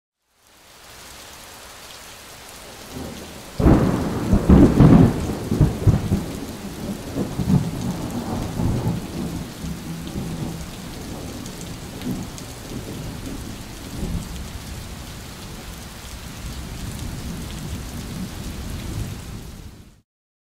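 Steady rain with a sudden clap of thunder about three and a half seconds in that rolls on and slowly dies away, the rain running on until it fades out near the end.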